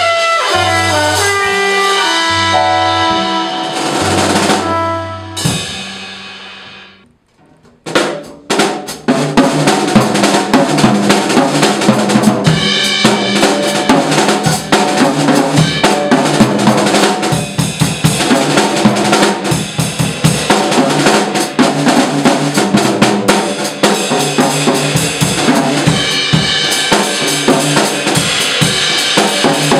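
A trumpet phrase over upright bass dies away about six seconds in. After a moment of near silence a jazz drum kit takes a busy solo, with snare, bass drum and cymbals.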